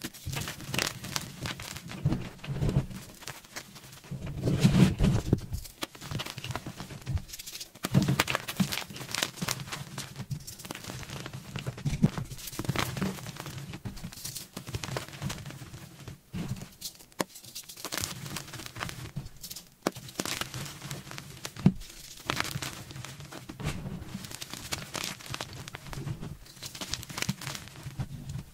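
Dried pasted gym chalk blocks being crushed and crumbled, a dense, irregular crisp crunching and crackling with a few louder snaps.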